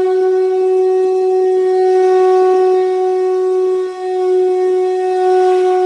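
Conch shell (shankha) blown in one long, steady note with strong overtones, briefly faltering about four seconds in before sounding on.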